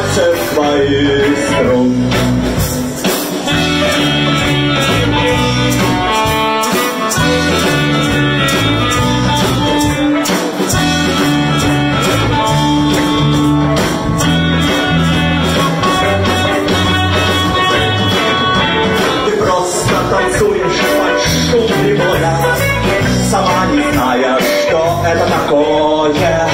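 Live rock band playing: electric guitar, bass and drums under a saxophone and harmonica, with a steady beat and no lyrics recognised.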